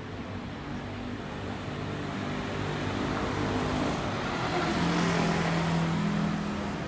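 A motor vehicle passing on the street: its engine grows louder to a peak about five seconds in, then fades.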